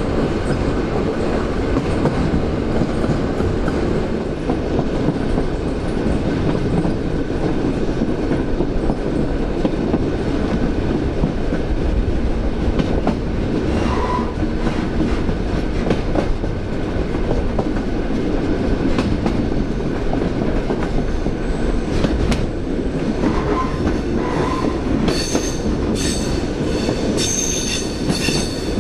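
EN57 electric multiple unit on the move: a steady running rumble with occasional rail-joint clicks. Near the end a high wheel squeal sets in, the flange squeal of the wheels taking one of the line's tight curves.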